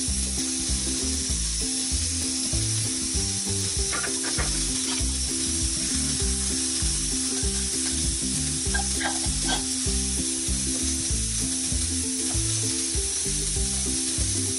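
Butter and then beaten egg sizzling steadily on a hot flat tawa for an omelette. A few light clicks come from a fork working the egg against the pan.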